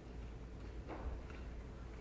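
Library ambience: a steady low room hum with a few faint knocks and clicks about a second in.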